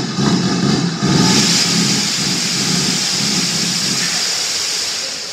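Steam locomotive close by: a low rumble under a loud, steady hiss of escaping steam that sets in about a second in and eases off near the end.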